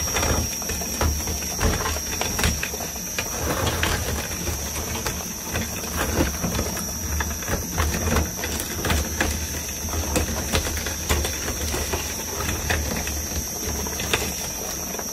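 Twin-shaft shredder's hooked steel cutter discs turning with a steady low motor hum, cracking and grinding a brick-like block into fragments, with irregular sharp cracks all through.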